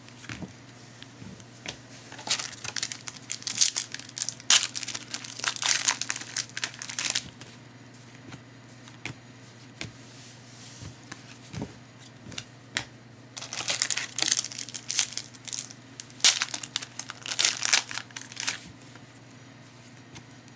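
Trading-card pack wrappers being crinkled and torn open by hand, in two spells of crackling.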